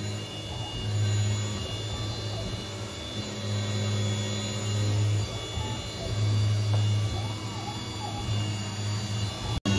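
Grizzly G0704 CNC mill cutting under flood coolant. A low hum swells and drops every second or two, over a steady high-pitched whine.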